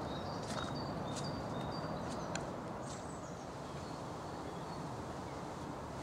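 Footsteps on a muddy path in the first half, about one every half second, with small birds giving thin, high calls over a steady low outdoor noise.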